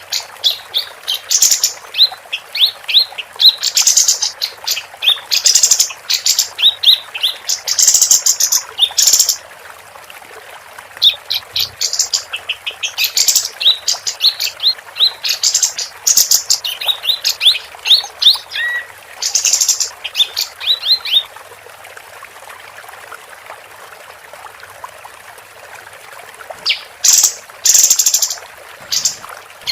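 Female kapas tembak songbird singing loud bursts of rapid high chirps and short trills, with brief pauses between phrases. A longer silence of several seconds comes before the song resumes near the end.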